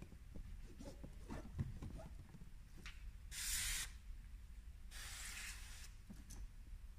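Hand pump-pressure spray bottle spraying soapy water onto an inflatable boat's Halkey-Roberts valve, two hissing sprays: a short one about three and a half seconds in and a longer one about five seconds in. This is a soap-water leak test after tightening the valve.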